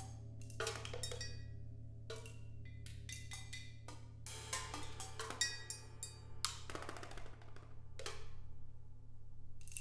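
Solo multi-percussion playing: quick, irregular flurries of stick strokes on wooden boxes, drums and metal instruments, some strokes ringing on, over a steady low hum.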